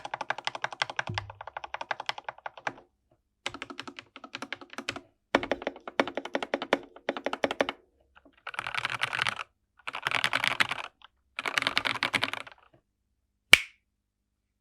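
Typing on a 60% mechanical keyboard with lubed TKC Tangerine linear switches on an FR4 plate in a foam-filled case: several runs of quick keystrokes, then three denser, faster bursts of about a second each, and one single sharp click near the end that is the loudest sound.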